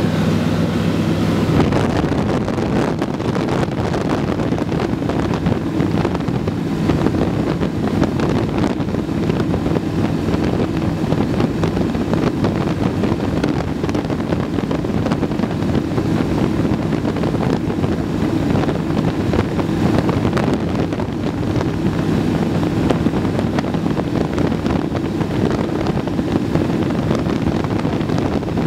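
Zenith CH-701 single-engine light aircraft in cruise flight, heard from inside the cockpit: a steady engine and propeller drone with wind rushing over the microphone.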